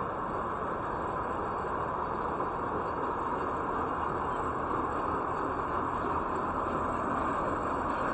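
Steady wash of city street traffic noise, with no distinct horn, voice or impact standing out, growing slightly louder.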